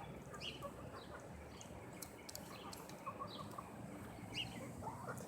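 Faint, scattered short bird chirps and calls over low outdoor background noise.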